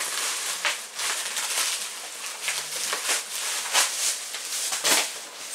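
Packaging being opened and handled: irregular rustling and crackling with sharp scrapes, and a firmer knock near the end, as the answering system is pulled out of its box.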